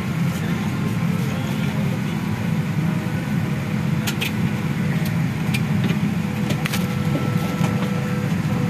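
Steady airliner cabin noise: an even low rumble of engines and airflow, with a few light clicks around the middle.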